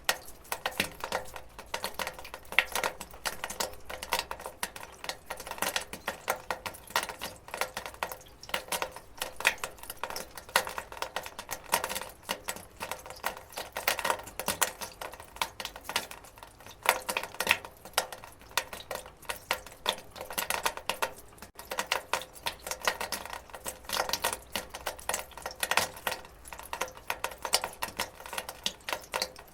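Water dripping onto a metal gutter: a rapid, irregular patter of drops tapping and ticking on the metal.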